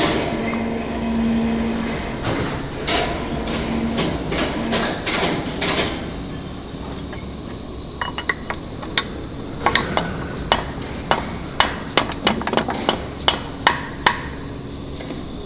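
Sharp metal-on-metal knocks, about two a second, in the second half, as a steel pin is hammered into a bore of an excavator tiltrotator's steel frame. Before that, steel parts clatter over a steady hum.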